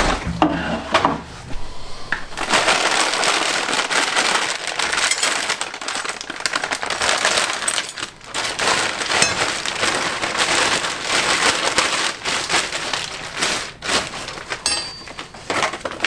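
Cardboard box flaps being handled in the first couple of seconds, then continuous crinkling and rustling of plastic bags and packing paper as parts are unwrapped.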